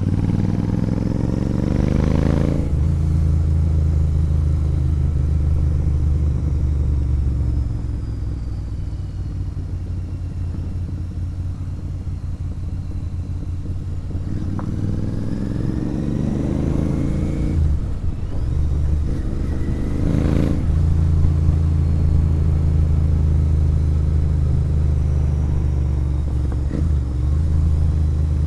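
Royal Enfield Interceptor 650's parallel-twin engine through a sport exhaust, on the move. It revs up through a gear at the start, shifts up and runs at steady revs. About halfway through it accelerates through two more gears, each pull ending in an upshift, then settles into a steady cruise.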